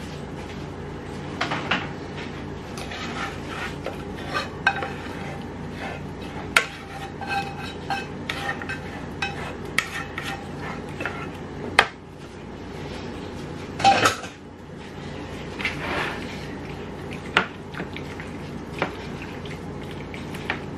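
Metal utensil scraping and tapping against a saucepan as thick sauce is scraped out, then a fork clinking and scraping in a metal baking pan while mixing pasta. Irregular clinks, with a few sharp knocks.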